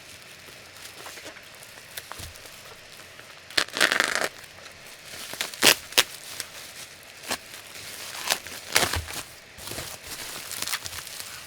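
Unboxing packaging being handled: plastic and cardboard crinkling and rustling, with scattered sharp clicks and taps. The loudest moment is a rustling burst about four seconds in.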